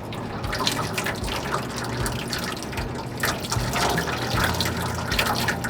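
Engine oil pouring out of a truck's oil-pan drain in a steady, splashing stream: a large quantity of old oil being drained during an oil change.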